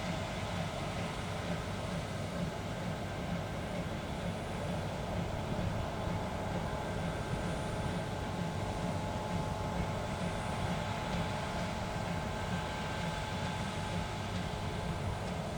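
Heavy diesel harvest machinery running steadily at working speed, a continuous low rumble with a faint steady whine above it.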